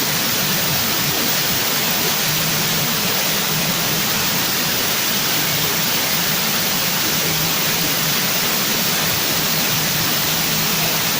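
Steady, loud hiss with no changes, and a faint low hum coming and going underneath.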